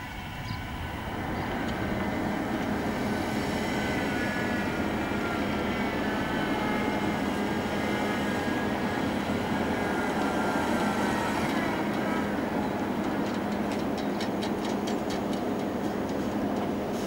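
Concrete mixer truck's diesel engine running as it drives along, a steady drone with a wavering whine over it, getting louder over the first couple of seconds. A run of light, quick clicks comes in near the end.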